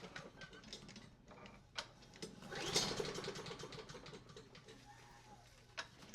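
Honda lawn mower engine cranked by its pull-cord recoil starter, spinning over briefly in a rapid chugging rhythm without firing, one pull about two and a half seconds in. It sounds like it hasn't got a lot of heart: the engine has no fuel and zero compression.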